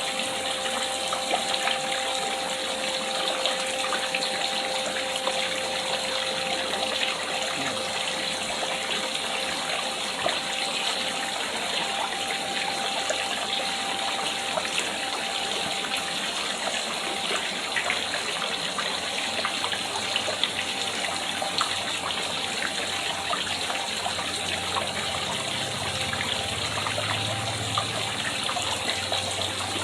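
Water falling steadily into a pond: a continuous, even splashing rush, with a faint steady hum beneath it.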